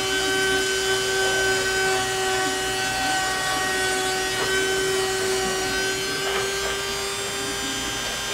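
Shapeoko 2 tabletop CNC router carving into a wooden board: the spindle motor runs with a steady whine while the bit cuts and moves between spots of the design.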